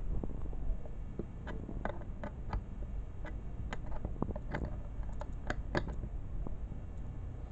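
Open-end wrench clicking against a nut and bolt while tightening them on a metal bracket through a windshield hole: about a dozen light, irregular metallic clicks and taps.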